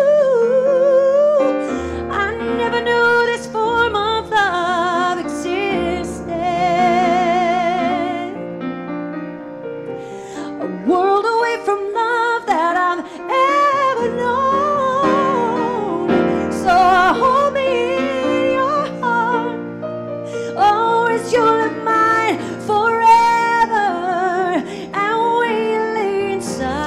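A woman singing a slow ballad into a handheld microphone over instrumental accompaniment, with strong vibrato; about six seconds in she holds a long wavering note.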